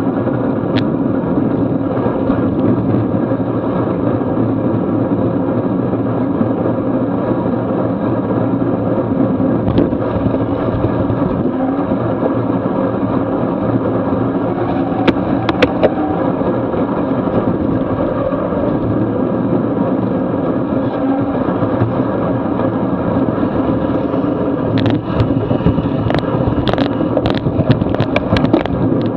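Steady rushing of wind and road noise picked up by a bicycle-mounted camera on a racing bike moving at about 20 mph over wet pavement. A handful of sharp clicks come near the end.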